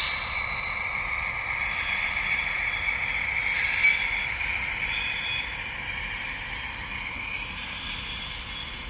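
Model Union Pacific 'Big Blow' gas turbine locomotive's DCC sound decoder playing a steady turbine whine through the model's small speaker as it runs. The sound grows fainter over the last few seconds.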